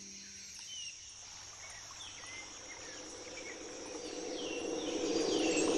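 Rainforest ambience: a steady high insect drone with scattered short falling calls. A low, indistinct sound swells in level over the last couple of seconds.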